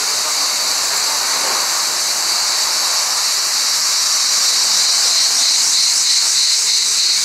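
A loud, steady, high-pitched buzzing chorus of cicadas, pulsing slightly about halfway through.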